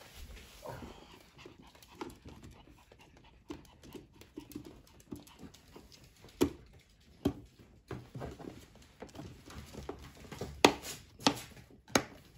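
Sounds from a Pomeranian dog, with a scattered run of sharp plastic knocks and clicks as the wheels of a child's ride-on toy car are handled and pushed into place. The loudest knocks come about halfway through and near the end.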